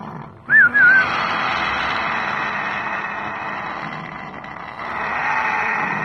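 An African grey parrot gives one short wavering whistle about half a second in, over a steady background hiss.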